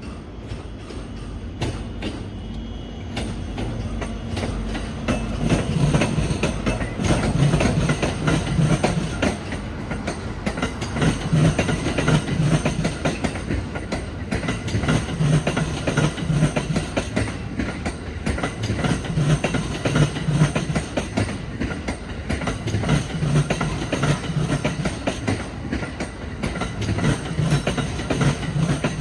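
Locomotive-hauled train of eight Green passenger cars rolling slowly across pointwork as it switches tracks. The wheels clatter over the switch and crossing joints in groups that come round about every four seconds, car after car, with some faint wheel squeal.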